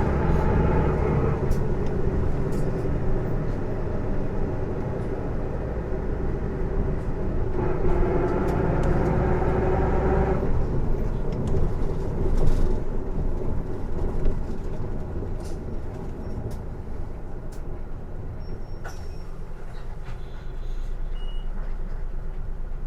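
Isuzu PJ-LV234L1 city bus heard from inside while driving: diesel engine and a loud, unfamiliar drivetrain noise that is louder than the engine, which the uploader takes to come from the drivetrain. It pulls hard at the start and again about eight seconds in, then eases off and settles to a lower, steady hum near the end, with a few light clicks.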